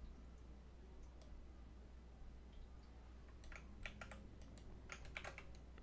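Faint computer keyboard clicks: a single keystroke about a second in, then a quick run of keystrokes from about three and a half to five and a half seconds in, over a low steady hum.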